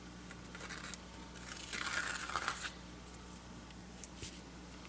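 Washi tape being handled along the edge of a paper-backed canvas: one papery rustle of tape pulled and pressed lasting about a second, with a single small click near the end.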